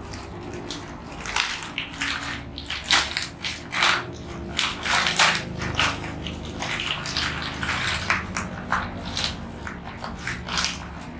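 Plastic bag crinkling and rustling in irregular bursts as powder is shaken out of it into a container and the bag is then folded up, over a low steady hum.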